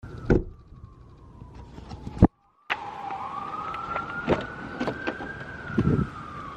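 A siren wailing slowly: its pitch falls, drops out for a moment, then rises and falls again. A few sharp knocks and clicks are heard over it, the loudest about two seconds in.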